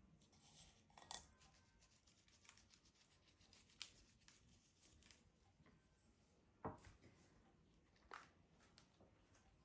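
Near silence in a small room, broken by a few faint, short clicks and rustles, the loudest about two-thirds of the way through.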